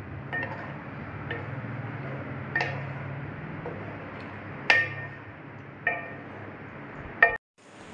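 Wooden spatula stirring chicken in cream in an aluminium karahi, knocking and clinking against the pan's side about six times, over a steady low hum. The sound cuts off suddenly near the end.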